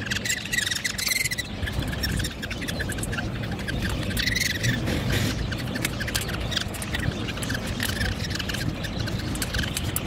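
Baby budgerigar chicks making rapid, raspy, repeated calls while being held and handled, with louder bursts of calling about a second in and around four seconds in, over a low rumble of handling noise.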